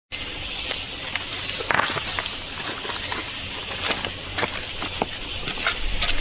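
Footsteps on loose river stones and rocks clacking together as a man picks his way across a stony bed and gathers stones: irregular sharp knocks and clicks over a steady background hiss.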